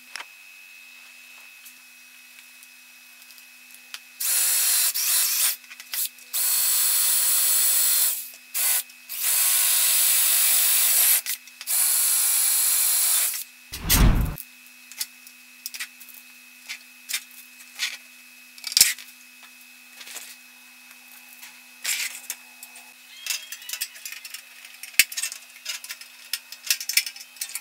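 Electric hand drill boring mounting holes for a transformer through the thin metal base of an amplifier case, run in five short bursts of one to two seconds. A heavy thump follows, then light scattered clicks and taps as screws are turned in with a hand screwdriver.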